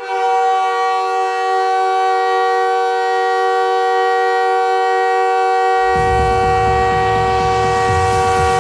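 NHL arena goal horn blasting a steady chord of several held tones, starting suddenly. About six seconds in a low rumble joins underneath the horn.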